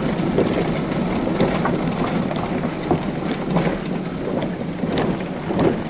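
Car rolling slowly over a rough gravel road, heard from inside the cabin: steady tyre and road rumble with scattered small clicks and rattles from loose stones.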